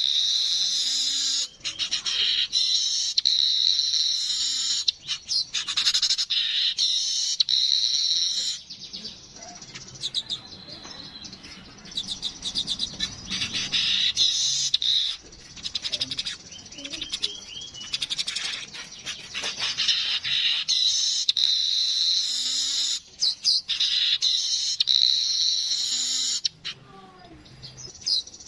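Weaver bird (manyar kepala kuning) singing: long bursts of rapid, buzzy, high chattering broken by short pauses, with a quieter stretch about a third of the way in.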